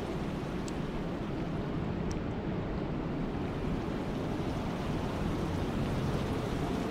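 Steady rain, an even rushing hiss heaviest in the low range, with a couple of faint drip ticks.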